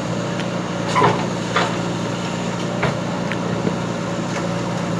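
Diesel engine of a JCB backhoe loader running steadily, with a few sharp knocks over it, the loudest about one second and a second and a half in.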